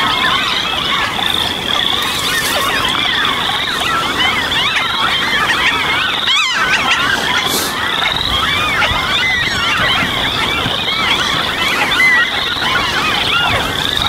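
Dense chorus of many wetland birds calling at once, a continuous mass of overlapping rising and falling calls, briefly cut off about six seconds in.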